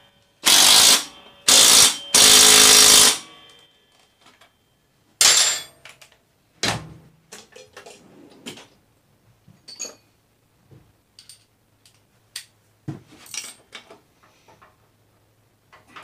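Cordless impact driver run in short spurts on a dirt bike's rear axle nut, tightening it: three runs in the first three seconds and one more about five seconds in. After that come light clinks and knocks of tools being handled.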